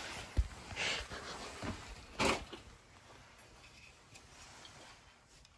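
Handling noise near a Honeywell zone valve: a soft knock, then two brief rustles as hands and the phone move in close to the valve head, fading to a faint low background.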